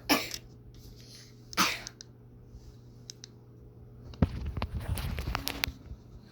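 Handheld ceiling fan remote being handled and its buttons pressed: a couple of short noisy bursts, then a cluster of sharp plastic clicks and rustling about four seconds in, with the remote getting no response from the fan.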